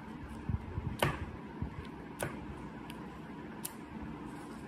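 Steel scissors snipping around a shape made of white adhesive tape: several separate snips, the loudest about a second in.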